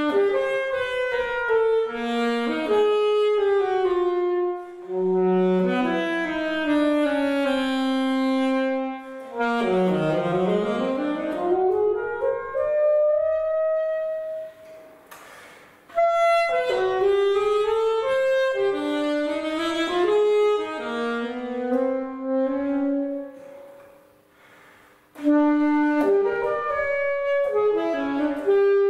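Unaccompanied alto saxophone playing a classical solo: quick-moving melody with fast runs down and back up, broken by two short pauses.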